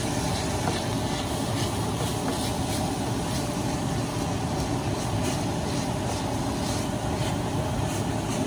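Ground beef and taco-seasoning water sizzling in a hot enamelled cast-iron skillet as it is stirred with a wooden spoon, with light spoon scrapes. A kitchen tap runs at the same time, and the two together make a steady, even hiss.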